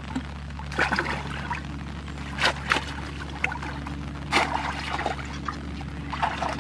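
Shallow pond water splashing and trickling as hands scoop and stir through it: about five short, irregular splashes over a steady low hum.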